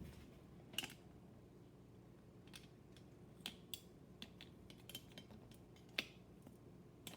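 Faint, scattered small clicks and taps from an AirPod being handled and set into its plastic charging case and the case lid being worked, with two sharper clicks, about a second in and near the end.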